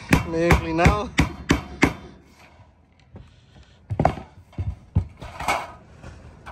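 Hammer driving nails through sheet-metal angle flashing into a roof deck: about six sharp strikes in quick succession over the first two seconds, then a few scattered knocks.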